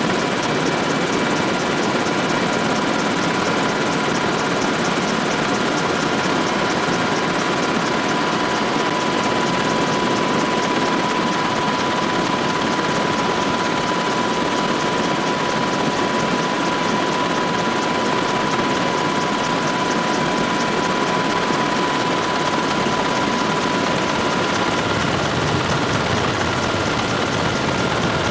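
Helicopter in flight heard from inside the cabin: a steady, loud rush of rotor and engine noise with a steady high whine that stops near the end.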